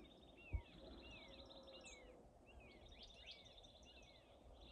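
Faint songbirds calling: a series of short down-slurred chirps repeated every half second or so, over a buzzy trill. There is a single low thump about half a second in.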